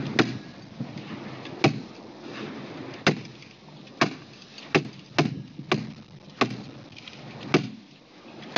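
Hammer tacker driving staples through plastic liner into a wooden 2x4, about nine sharp smacks at an uneven pace, half a second to a second and a half apart.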